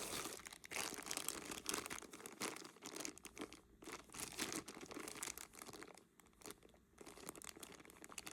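Small plastic jewelry bags crinkling and rustling in the hands as pieces of costume jewelry are pulled out and handled, in irregular bursts with short pauses.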